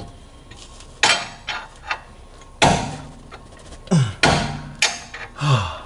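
Wrench and 12-point socket clanking on steel against a Mustang's driveshaft flange bolts: about four sharp metallic knocks, spaced about a second apart. Short grunts of effort come between them, as the bolts are stubborn to break loose.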